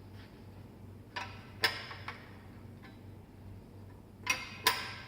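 Tools and bicycle parts being handled during bike assembly: a few sharp metallic clinks with brief ringing, two pairs about a second in and near the end.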